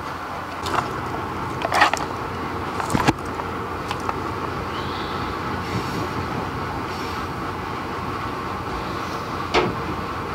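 Steady running noise of an Amtrak passenger coach rolling along the rails, heard from inside the car. A few short knocks and rustles of the camera being handled come through about a second, two and three seconds in, and again near the end.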